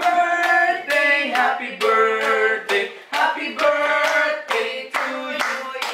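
A small group of men and women singing a birthday song together with held notes, clapping along in time about twice a second.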